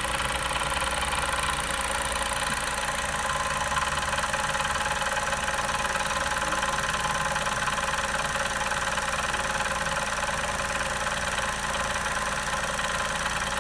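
Chevrolet Onix 1.0 turbo three-cylinder engine idling steadily with an added mechanical noise, which the owner suspects comes from the brake vacuum pump after the brake pedal is pressed.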